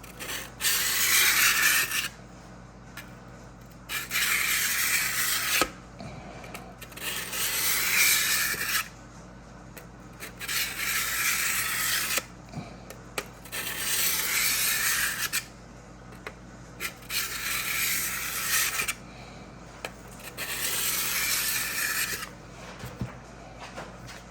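Harbor Freight 400-grit diamond sharpening block drawn along the steel blade of an old ChipAway drawknife to sharpen it. Seven even, scratchy strokes, each lasting about two seconds, with short pauses between them.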